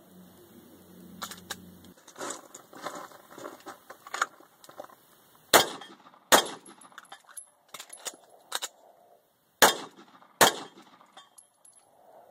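Sig 220 Combat .45 ACP pistol fired in two pairs of shots. The shots in each pair are under a second apart, and the second pair comes about three seconds after the first. Fainter metallic clicks and clatter of magazine changes come before and between the pairs.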